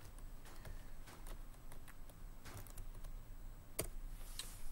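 Computer keyboard keys tapped in a few short, scattered keystrokes, with one sharper click a little before the end.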